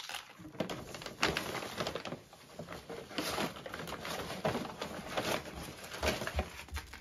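Irregular crinkling and rustling of packaging being rummaged through and handled, with dense crackles and a few sharper rustles.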